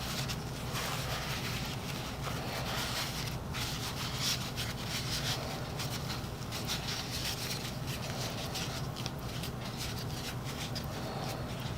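Irregular rubbing and scraping sounds with a few light clicks, over a steady low hum.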